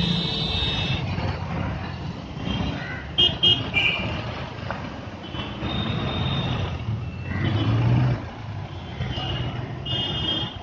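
Heavy city traffic: engines running and cars, taxis and trucks passing, with horns honking on and off, a few short loud toots about three seconds in.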